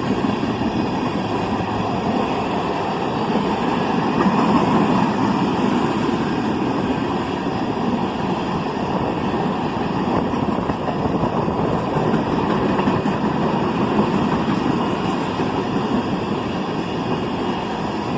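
A CSX freight train of empty ethanol tank cars rolling past, a steady, continuous rumble of wheels on rail.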